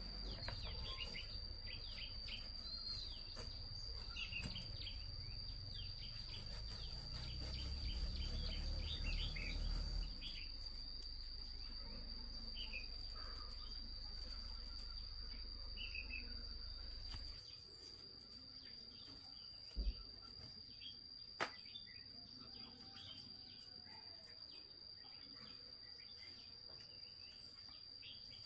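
Outdoor rural ambience: a steady high-pitched insect drone with scattered bird chirps. A low rumble underneath drops away about two-thirds of the way through, and two sharp clicks follow a couple of seconds later.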